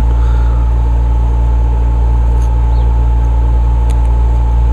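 A steady low machine hum, with a faint high tone held over it and a few light ticks about four seconds in.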